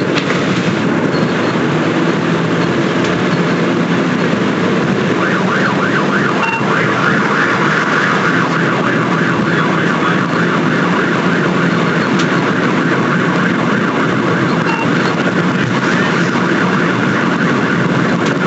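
Police cruiser in a pursuit: engine and road noise, loud and steady, with a fluttering higher tone that comes in about five seconds in and fades a few seconds later.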